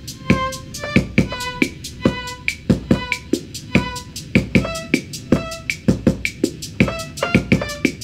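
A multitrack recording played back sped up on a TEAC A-3440 four-track reel-to-reel: a fast, even drum beat at about four to five hits a second with short pitched keyboard notes between the hits, while a keyboard is played along with it.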